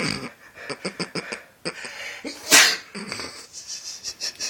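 A loud, sudden sneeze about two and a half seconds in, after a run of short, quick breath-like sounds leading up to it.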